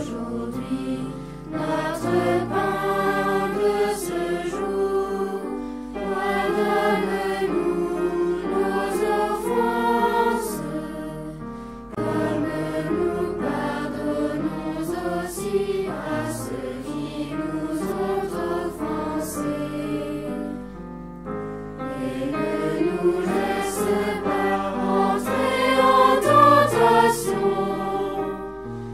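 Choir singing a slow sacred song in long phrases, with short breaks between them.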